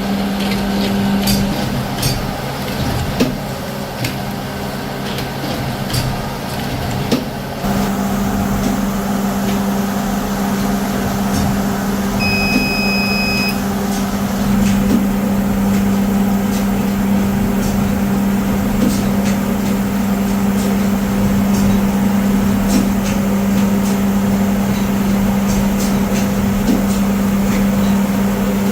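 Factory machinery running with a steady low hum and irregular clicking and ticking; the sound changes abruptly about seven seconds in, and a short high beep sounds near the middle.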